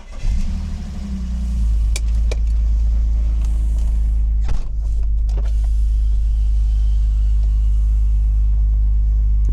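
Car engine starting about a quarter second in, then running with a steady low rumble.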